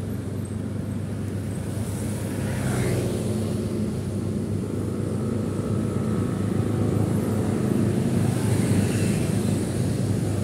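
Motorcycle running at riding speed in city traffic, a steady low rumble with road and wind noise. Another vehicle passes close by about three seconds in with a short rushing sound, and a second one around eight seconds in.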